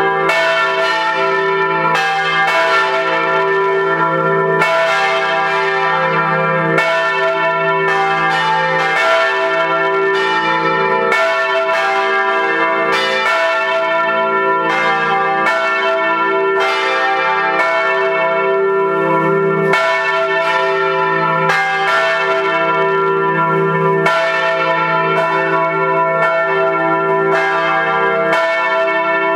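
Full peal of four church bells cast by Rincker in 1953, tuned e' g' a' c", swinging on straight yokes and struck by their clappers in a continuous, overlapping sequence of strokes, each note ringing on under the next. Heard close up in the belfry, loud and steady.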